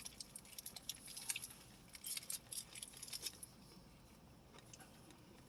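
Faint chewing and mouth clicks of someone eating a McGriddle breakfast sandwich: a scatter of small, wet clicks through the first three seconds, thinning out to near quiet.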